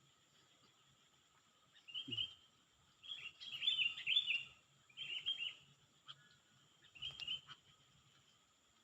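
A songbird chirping in four short bursts of quick, high notes. The longest burst comes in the middle. Faint steady high tones run underneath.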